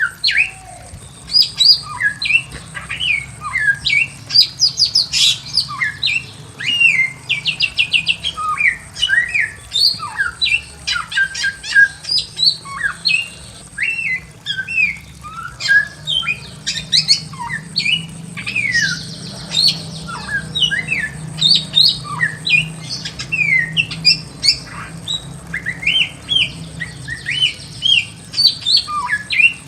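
Bare-throated whistler (samyong) singing a rapid, varied song of short whistled notes sweeping up and down, mixed with quick chattering trills, without pause.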